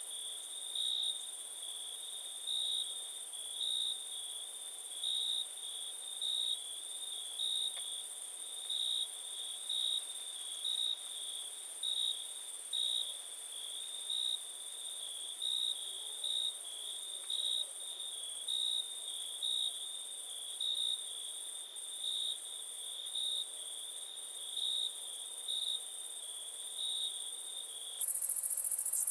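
Crickets chirping: a steady high trill that swells into louder pulses about once a second, over a fainter, higher continuous insect whine. Just before the end this cuts off abruptly, and a louder, hissier high insect buzz takes its place.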